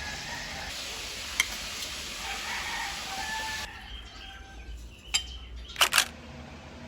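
A rooster crowing over a steady background hiss, with a few sharp clicks: one early, then three close together near the end.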